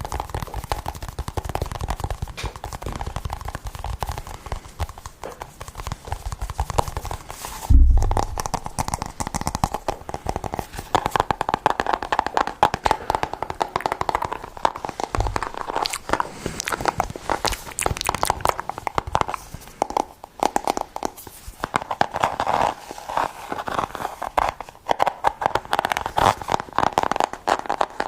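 Rapid close-up ASMR tapping: a dense stream of quick small clicks, with a single louder thump about eight seconds in.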